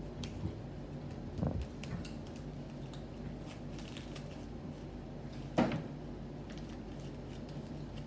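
Quiet room tone with a steady low hum, broken by two short soft handling knocks, about a second and a half in and again just before six seconds.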